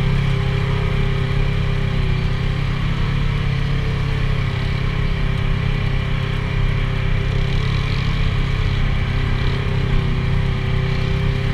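Side-by-side UTV engine running steadily at a constant low throttle as it cruises, with a steady drone and an even whine that hardly change in pitch.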